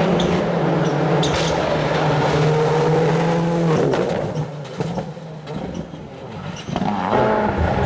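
World Rally Car's turbocharged four-cylinder engine running hard at a steady high pitch for about four seconds, then dropping away as the car goes past; another rally car's engine comes in loud about a second before the end.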